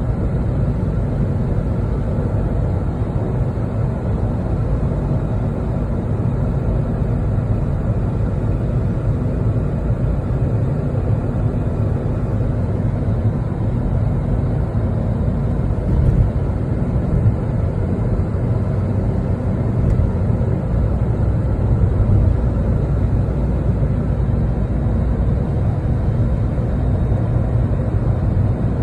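Steady road noise inside a car's cabin at highway speed: a low rumble of tyres on the pavement and the engine, unchanging throughout.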